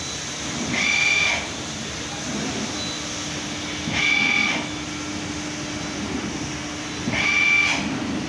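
Digital printing machine running with a steady hum, and a short pitched whine three times, about every three seconds, as its mechanism cycles.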